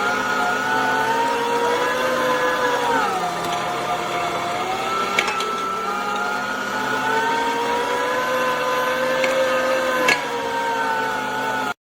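STX Turboforce 3000 electric meat grinder's motor running with a steady whine after reassembly. Its pitch sags about three seconds in and works back up, with a couple of faint clicks. The sound cuts off suddenly near the end.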